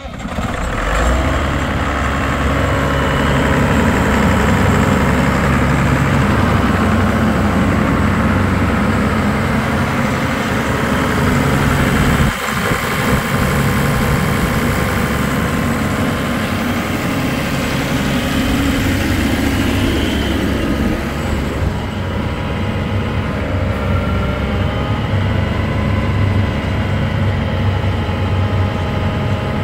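Allis-Chalmers 7020 tractor's turbocharged six-cylinder diesel engine catching right at the start and then idling steadily.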